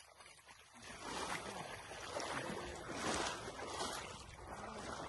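Water splashing and sloshing in uneven surges, about once a second, as a dog wades and paddles through a shallow creek.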